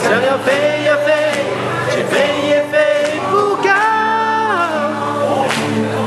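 Singing accompanied by a strummed nylon-string classical guitar.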